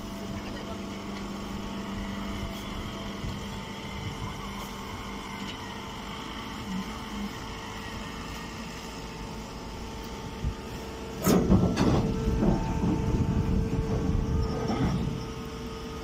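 Vertical hydraulic baler's motor and pump running with a steady hum. About eleven seconds in, a louder stretch of irregular rumbling and knocks begins and lasts a few seconds.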